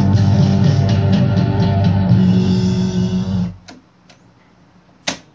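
Rock music with guitar and bass playing back from a cassette on a Gradiente S96 stereo cassette deck, cut off suddenly about three and a half seconds in. Two soft clicks and then one sharp click follow near the end as the deck's piano-key transport buttons are pressed.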